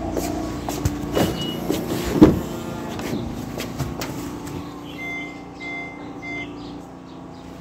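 Handling knocks and a car door being opened, the loudest clunk about two seconds in. From about five seconds, the Honda Vezel's electronic warning chime beeps repeatedly with the driver's door open, short even beeps about one and a half a second.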